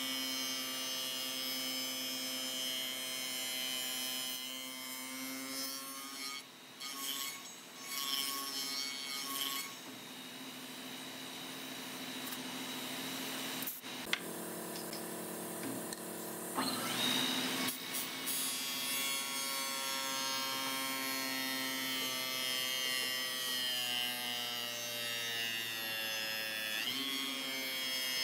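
Electric woodworking power tool running with a steady motor hum while it works wood, with a rasping, rubbing noise over the hum. The motor's pitch sags briefly near the end.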